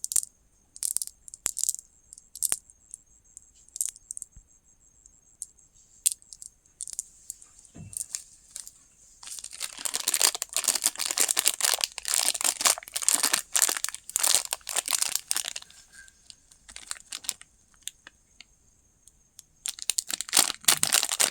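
Plastic candy wrapper being handled and torn open. Scattered crinkles and clicks come first, then a dense stretch of crinkling and tearing for about six seconds in the middle, and a last short burst near the end.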